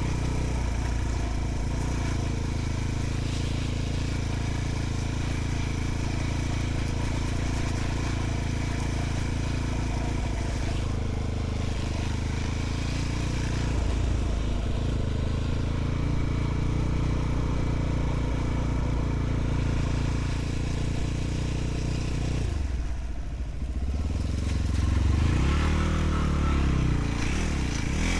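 Enduro motorcycle engine running steadily, then revving up and down a few times near the end.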